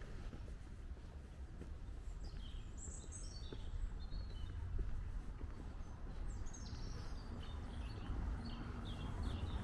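Small songbirds singing in short phrases, including a few quick runs of high notes falling in pitch, over a steady low background rumble.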